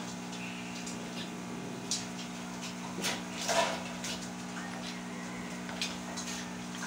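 Scattered knocks and rattles of a metal wire dog cage as a beagle is put back inside and the door is handled, the loudest about halfway through, over a steady low hum.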